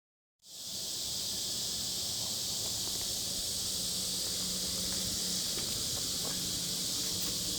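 Steady, high-pitched chorus of summer insects buzzing without a break, starting abruptly about half a second in, with a faint low hum beneath.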